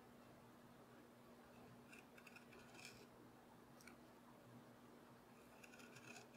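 Small carving knife paring chips from a walnut seat: faint, short scraping cuts about two seconds in, once near four seconds, and again near the end, over a steady low hum.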